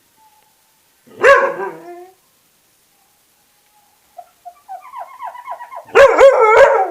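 A dog barks and howls in answer to squeaking window glass: one howling bark about a second in, then a run of short rhythmic squeaks from glass being rubbed during washing, and a louder, wavering howl-bark near the end.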